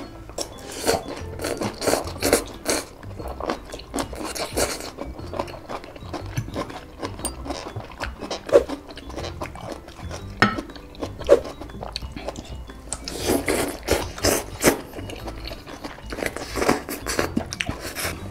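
Two people slurping and chewing Shin Ramyun instant noodles in repeated noisy bouts, with forks scraping and clinking against a glass baking dish.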